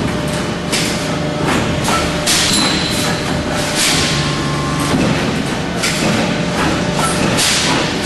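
Cable tray roll-forming machine running with a steady mechanical hum, broken by repeated heavy thumps at uneven intervals, about one or two a second.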